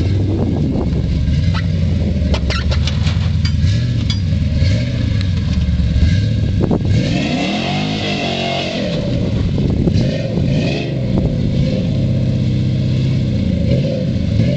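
Dodge pickup's HEMI V8 engine working as the 4x4 truck crawls over log timbers, with a run of sharp knocks about two to four seconds in. About halfway through the engine revs up and back down while the rear tyres spin in loose sand with a hiss of spraying sand, then it pulls away.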